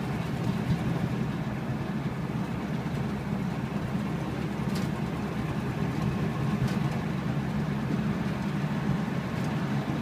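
1959 Ford Thunderbird's V8 engine running steadily while driving, heard from inside the cabin.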